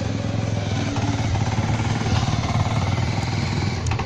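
Motorcycle engine running steadily at low speed while towing a passenger carriage.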